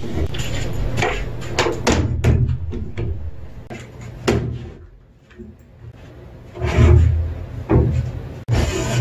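Irwin bar clamps being released and heavy glued-up 2x4 boards lifted and set down on a wooden bench, a series of sharp wooden knocks and clatters, with a heavier cluster of thuds about two-thirds of the way in.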